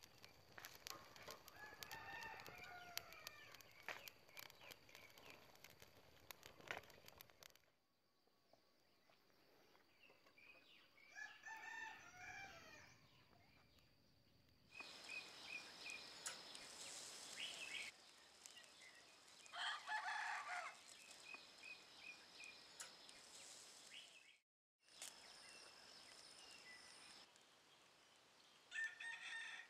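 Faint rooster crowing, about four times, with the crackle of dry leaves and bamboo burning in a small metal brazier during the first several seconds.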